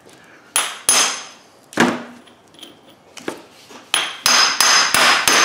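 Brass hammer striking the axle nut on the end of a CV axle shaft, driving the CV joint onto the shaft until its retaining clip snaps in. A few separate metallic blows, each with a short ring, then a quick run of about four blows a second near the end.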